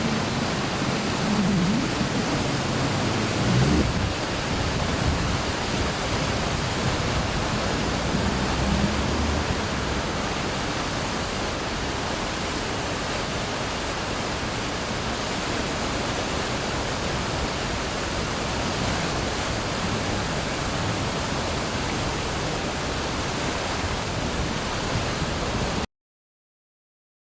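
Steady rushing of a river in flood, a dense even hiss of fast water, with some low rumbling in the first few seconds. It cuts off suddenly near the end.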